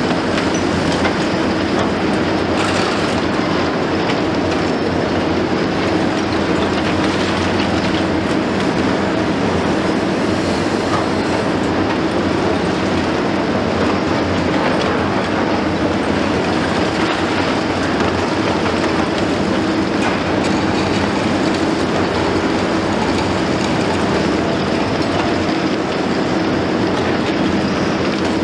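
Liebherr 954 long-front demolition excavator at work, its six-cylinder diesel engine running steadily under load with a constant, loud mechanical din.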